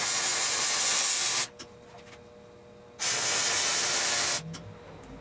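Welding arc sizzling in two short bursts, each about a second and a half, starting and stopping sharply, as short welds are laid on a steel table frame.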